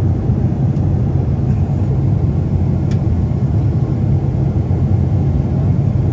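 Steady low rumble of jet airliner cabin noise in flight, engine and airflow heard from a window seat inside the cabin. A single faint click about halfway through.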